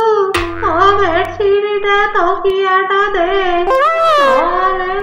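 A high-pitched voice singing a tune in short held notes that slide between pitches.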